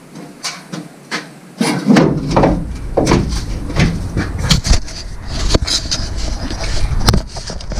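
Repeated knocks and clattering of hand work on parts of a pickup truck, a dozen or more sharp knocks over a low rumble that sets in about two seconds in.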